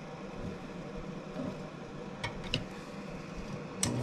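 A few light metal clicks from a screwdriver working the set screw on the motor pulley of a rotary rock tumbler, over a faint steady hum. Near the end a click, and the tumbler's motor starts running with a steady low hum.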